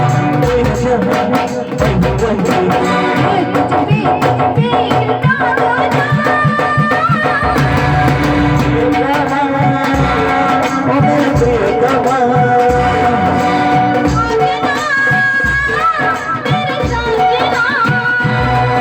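Marathi jagran gondhal devotional folk music: singing over a drum beat and melodic accompaniment.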